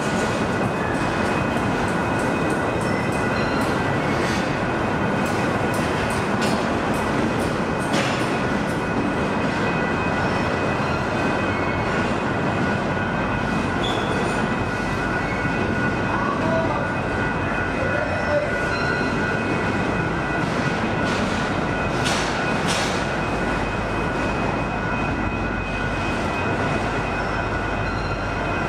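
Union Pacific intermodal freight cars rolling past in a steady, continuous rumble of wheels on rail, with irregular clicks and clanks from the wheels and couplings. A faint, steady high-pitched squeal from the wheels runs through it.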